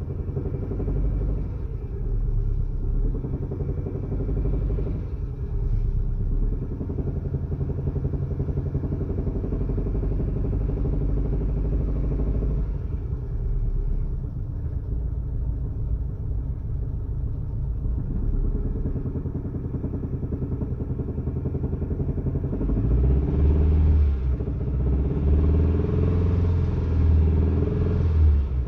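Kia Spectra engine running with a knock that appeared after the water pump and all the drive belts were replaced. It grows louder for the last few seconds.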